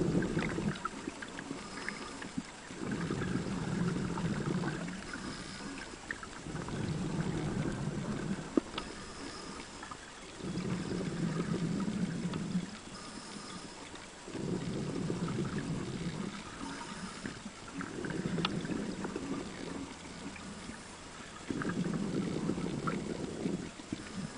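A scuba diver's breathing through a vintage double-hose regulator underwater: six rushing, bubbling exhalations of about two seconds each, every three and a half to four seconds, with quieter inhalations between.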